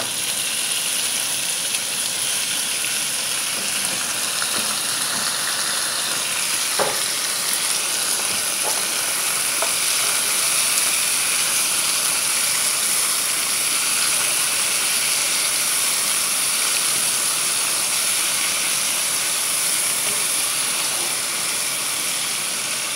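Sliced onions and halved cherry tomatoes sizzling in hot oil in a frying pan: a steady hiss, with a few light taps of the spatula.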